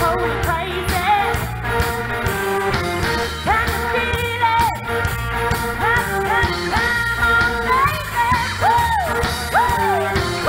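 Live rock band playing with a woman singing lead, her voice sliding between notes over drums, electric guitars and bass.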